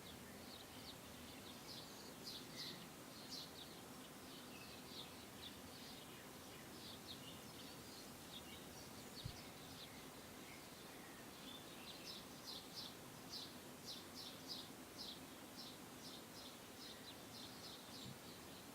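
Faint outdoor ambience with a small bird giving quick runs of short, high chirps, several a second, thickest near the start and again in the second half. A single soft low bump about halfway through.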